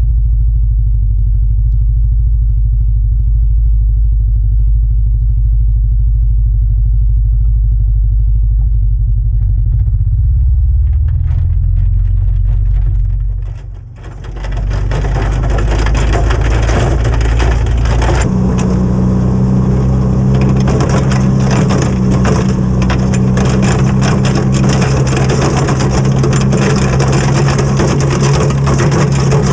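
Honda Foreman 450 ATV's single-cylinder engine running steadily as it pushes a plow through snow: a low rumble for the first half. After a brief dip about halfway, a loud steady hiss of snow scraping along the plow blade sits over the engine, which runs with a steadier, stronger hum from a few seconds later.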